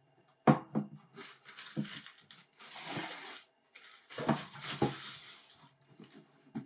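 Cardboard shoebox and wrapping tissue paper being handled as a boot is lifted out: papery rustling and crinkling, with sharp knocks of cardboard, the loudest about half a second in.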